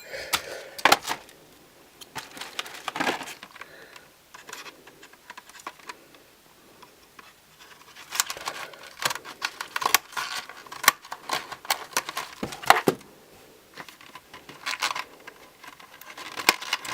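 Hands working at a phone-case box to get it open: scattered clicks, taps and scratches of card and plastic. It is sparse at first and busiest in the second half.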